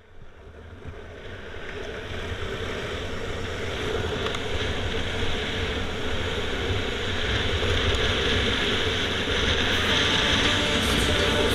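Wind rushing over the microphone and longboard wheels rolling over rough asphalt at speed, a steady rumbling hiss. It swells up from near silence over the first few seconds.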